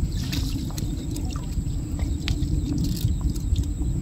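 Water sloshing and trickling as a fine-mesh shrimp net is handled in waist-deep river water, with scattered small splashes and drips. A steady low rumble runs underneath.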